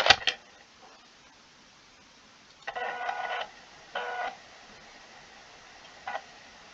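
A sharp click, then three short buzzing electronic tones from the computer setup: a longer one of under a second, a shorter one, and a brief blip near the end.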